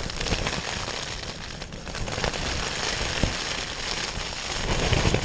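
Heavy rain pattering densely on the fabric of a Vango Storm Shelter 400, heard from inside, with wind buffeting the shelter in a low, unsteady rumble.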